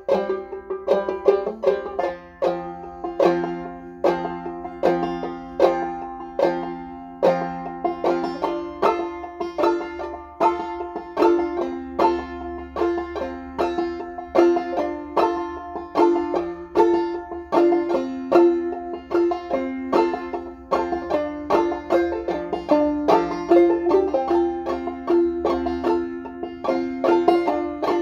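Banjo played clawhammer style: a steady, even rhythm of plucked notes running through a solo tune.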